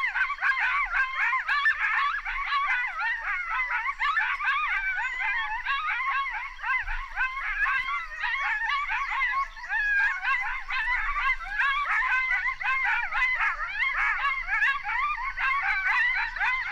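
A group of coyotes yipping and howling together, many high voices warbling and sliding over one another without a break.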